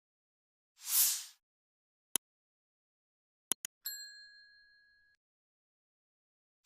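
Sound effects: a short whoosh, then a few sharp clicks, and a bright bell-like ding that rings for about a second and a half before stopping.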